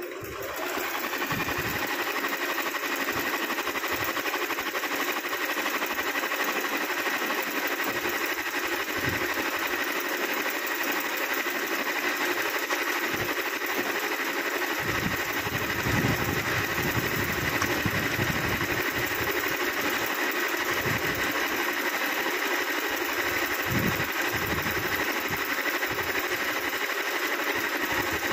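Singer Simple domestic sewing machine running at speed, stitching free-motion embroidery through cloth held in a hoop. It picks up speed within the first second, then runs steadily without stopping.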